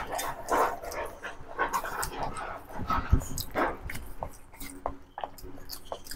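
Close-miked eating: wet chewing and smacking of rice and chicken curry eaten by hand, in irregular short bursts. Gulps of water from a plastic bottle in the second half.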